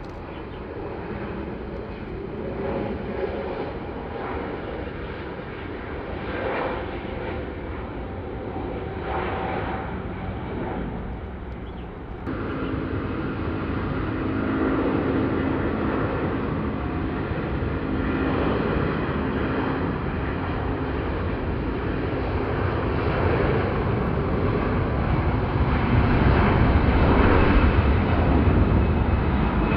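Jet airliner engines running: a steady noise that steps up suddenly about twelve seconds in and grows louder toward the end.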